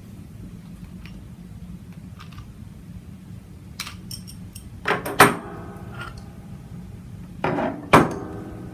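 Light metal clicks of adjustable wrenches being handled. Then two sharp metallic clanks with a short ringing tail, about five and eight seconds in, as the steel wrenches are set down on a table. A low steady hum runs underneath.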